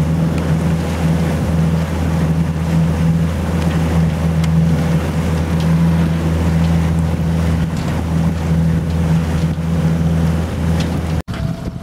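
Outboard motor of a MacGregor 26X sailboat running steadily at cruising speed, with water and wind noise over it. The sound breaks off abruptly near the end.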